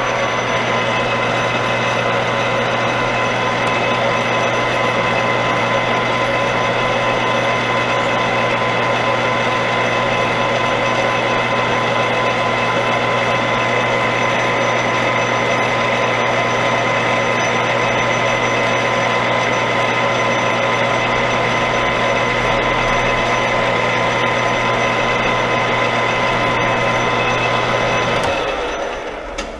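Metal lathe running steadily under power while it turns a cut on the part, with a steady motor and gear whine. It winds down and stops about a second before the end as the spindle is shut off.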